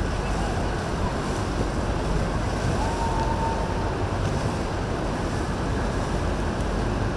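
Steady rush of wind on the microphone and of water at a boat inlet, with boat motors running underneath.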